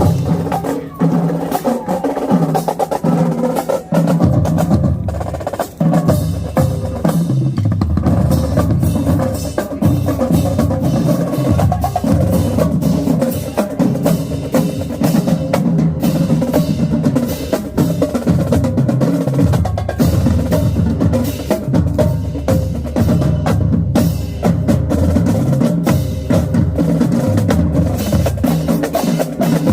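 Marching band drumline playing: fast snare drum strokes and rolls over bass drums.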